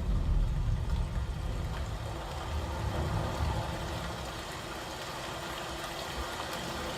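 Samsung HW-N950 soundbar and its subwoofer playing back test content: a deep rumble, heaviest in the first couple of seconds, easing into a steady wash of sound.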